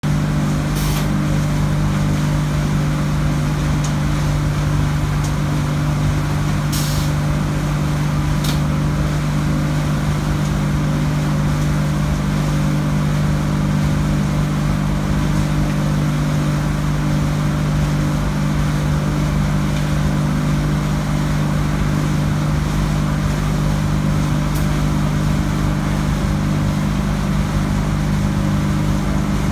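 Wood pellet packing line running: its electric motors and conveyors give a steady, loud hum. A few short clicks come through, about a second in, near seven and eight seconds, and once more near the end.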